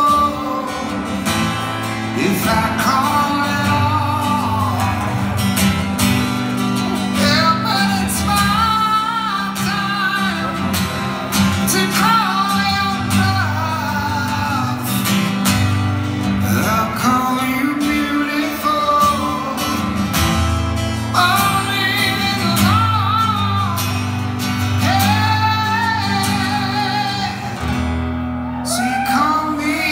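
Live rock ballad with a male singer holding long, wavering notes over acoustic guitar.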